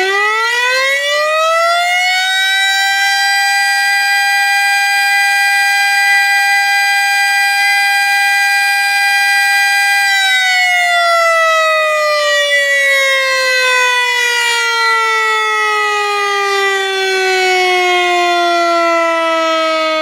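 Civil defense warning siren: its pitch climbs over the first two or three seconds, holds one steady note until about halfway, then slowly falls for the rest of the time. A separate steady high tone runs alongside it.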